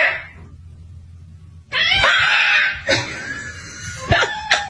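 Domestic cat giving a loud, harsh screeching yowl about two seconds in, followed by a quieter drawn-out call. Two sharp clicks come near the end.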